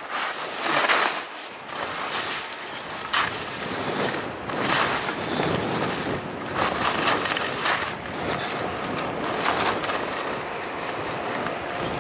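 Skis scraping and hissing over soft snow through a series of turns in moguls, each turn a swoosh, with wind rushing over the microphone.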